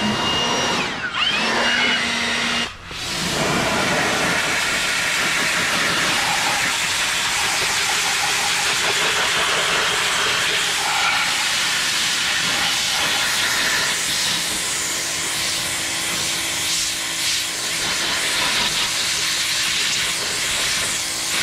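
Pressure washer blasting water onto a degreased steel truck frame: a loud, steady hiss of spray that breaks off briefly about three seconds in.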